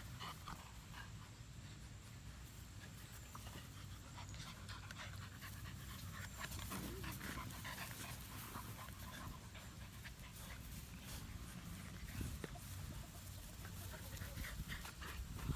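American Bully puppies tugging at a rope toy together, panting, with faint scuffling and rustling of rope and grass.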